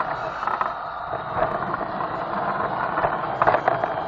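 Playmobil yellow diesel toy locomotive's electric motor and gearing running steadily with a whine, heard from a wagon riding behind it, with scattered clicks and rattles from the train, several in quick succession about three and a half seconds in.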